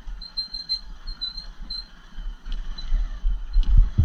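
Uneven low rumbling buffeting on the microphone during a slow motorcycle ride over a rough road, with a run of short high chirps in the first two seconds.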